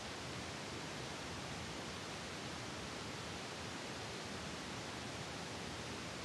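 A steady, even hiss of background noise with no distinct sounds in it.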